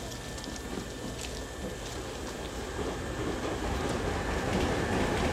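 Nankai 10000 series electric train moving slowly along the depot track, its running noise a steady low rumble that grows louder from about three seconds in.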